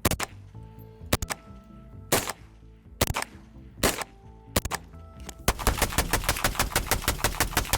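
5.56 rounds hitting a car windshield: single sharp cracks about once a second, then a rapid string of hits in the last two seconds.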